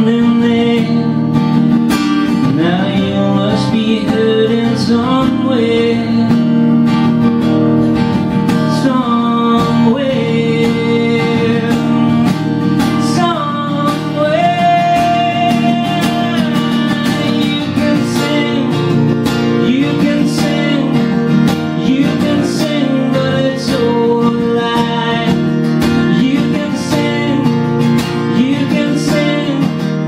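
Acoustic guitar strummed steadily with a man singing over it, including a long held note about halfway through.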